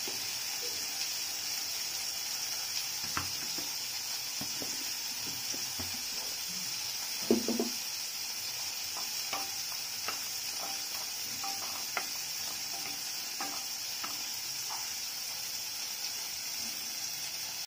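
Oats and chopped vegetables sizzling in a stainless steel kadai while being stirred with a spatula: a steady hiss with scattered scrapes and taps of the spatula on the pan, and one louder knock about seven seconds in.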